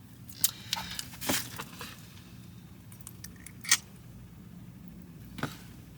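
Batteries and small battery-powered lights being handled: a few scattered sharp clicks and rattles, the loudest a little under four seconds in.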